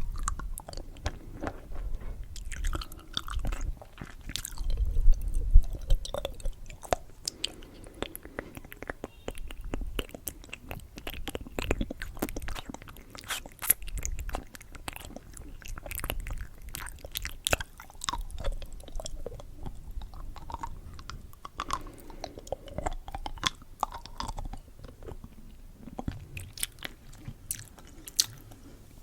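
Candy being chewed and crunched close to the microphone: irregular wet mouth clicks and crunches, loudest about five seconds in.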